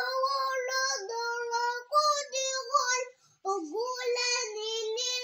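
A small boy chanting in the melodic style of Quranic recitation, holding long, steady high notes in phrases, with a short breath pause about three seconds in.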